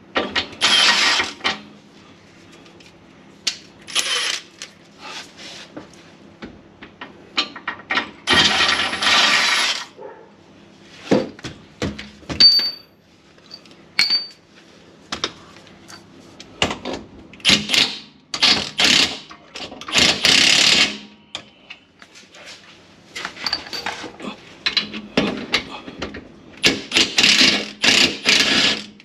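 Cordless impact driver rattling in bursts of one to three seconds as it works the rear differential mount nuts loose, with metallic clinks of sockets and bolts in between.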